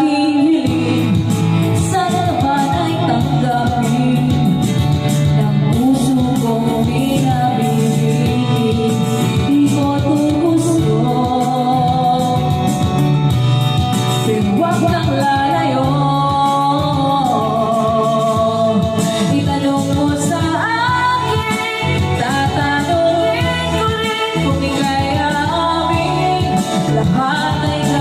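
Background music: a song with a singing voice over an instrumental backing.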